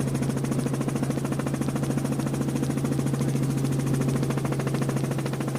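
Piston-engine helicopter running steadily in a descent, heard from inside the cabin: a steady low engine hum with a fast, even rotor beat.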